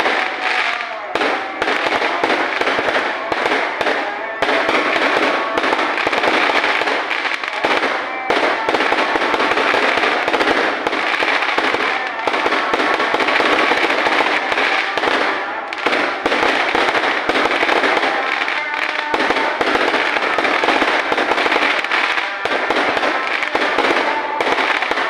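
Fireworks and firecrackers going off in a dense, unbroken barrage of crackling and popping.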